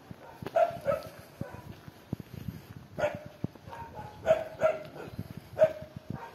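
A dog barking: about six short barks, several coming in quick pairs, loud against the background.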